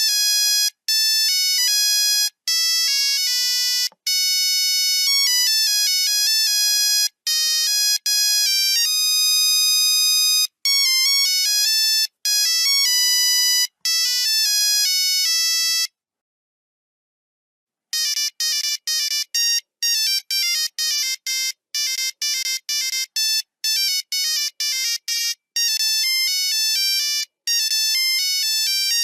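Nokia 3310 monophonic ringtones: a single-line melody of buzzy, electronic notes, then a silence of about two seconds midway, then a second, faster tune of quick short notes.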